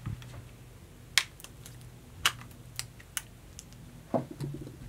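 Sharp metallic clicks and clacks, about five spread out, from a PPSh-41 submachine gun being handled, with a duller knock and rattle near the end.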